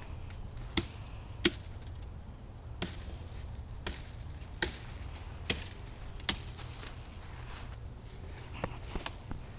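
Axe chopping into wood: about seven sharp strikes, roughly one a second, then a few lighter knocks near the end.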